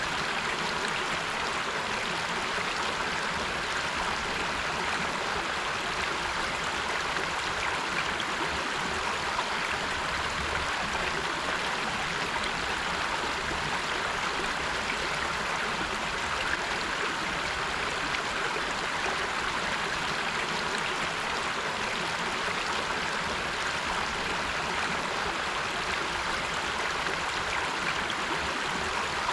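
River water flowing and rushing over rocks, a steady even rush.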